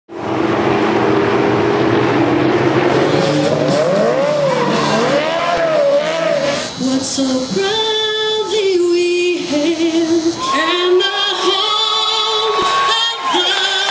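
Race car engine running hard on the track with tires squealing, wavering in pitch. In the second half it gives way to a series of held pitched notes, each about a second long.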